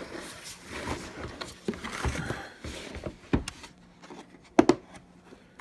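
Black hard plastic carry case being handled, with rubbing and rustling and a few sharp plastic knocks, the loudest about four and a half seconds in.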